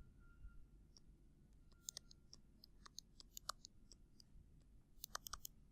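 Faint scattered small clicks and taps, coming in a cluster from about two to three and a half seconds in and again around five seconds in.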